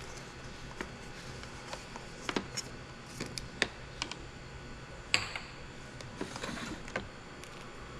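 Scattered small clicks and taps from objects being handled on a table, with one sharper click about five seconds in.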